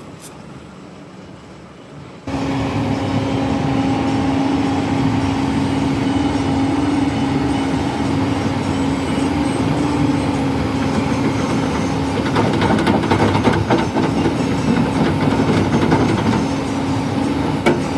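Heavy construction machinery's diesel engine running with a steady, loud drone and a held tone, starting abruptly about two seconds in after a quieter stretch.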